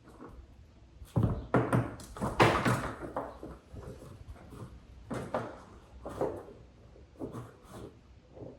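Irregular knocks, thuds and clatter of objects being handled and set down, loudest in a cluster in the first few seconds, then scattered lighter knocks.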